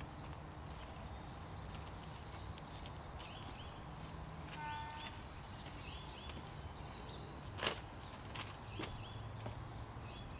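Outdoor ambience: small birds chirping again and again over a steady low rumble, with a few sharp clicks, the loudest about three-quarters of the way through.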